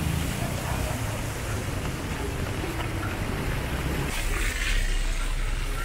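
Heavy rain falling steadily, with a vehicle running on the wet street and a low rumble early on. About four seconds in the sound changes abruptly to a brighter rain hiss.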